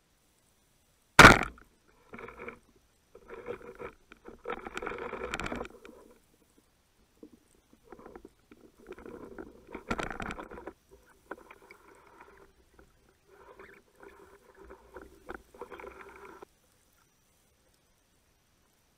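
A band-powered speargun fires underwater with one sharp crack about a second in. Irregular scraping, rattling bursts follow on and off while the speared dentex struggles on the shaft and line.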